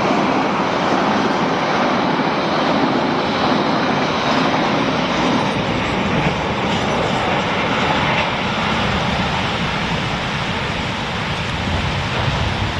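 A train running past in heavy rain, its rumble blended with the steady hiss of the downpour.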